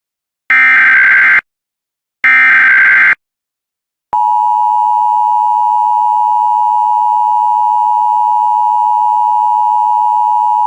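Emergency Alert System SAME header: two short bursts of rapid, buzzy digital data, about a second each. About four seconds in, the steady two-tone EAS attention signal starts and holds.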